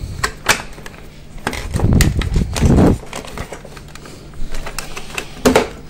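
Hand-handling noise as a purple-wired plug is worked loose from a dishwasher control-board socket. Small plastic clicks and taps are scattered through, with a louder low rustle between about one and a half and three seconds in.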